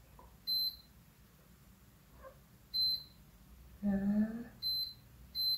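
Kova Gillen digital air fryer's touch control panel beeping as its buttons are pressed to set the cooking time: four short high beeps, each one acknowledging a press.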